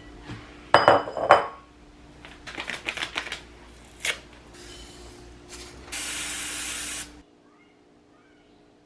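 Kitchen clatter: dishes and utensils knocking together several times, loudest about a second in. Then a steady spraying hiss lasts about a second and cuts off.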